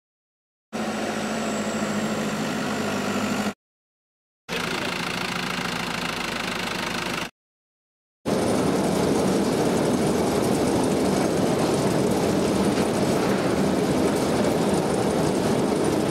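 Grape-processing machinery running steadily, in three stretches cut apart by two short silences. The first two carry a steady hum with a faint high whine. From about eight seconds in there is a denser, even mechanical noise from a vibrating grape-unloading trailer shaking its load of grapes down the discharge chute.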